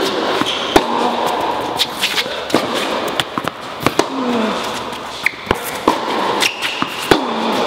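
Tennis rally: balls struck by rackets and bouncing on the court, heard as sharp, irregularly spaced pops.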